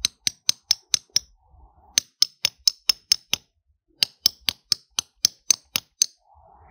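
A hammer tapping a steel nail into a lithium-ion battery cell resting on a stone, in three runs of quick, ringing metallic strikes, four or five a second, with short pauses between. The nail punches a hole in the cell without setting off any venting.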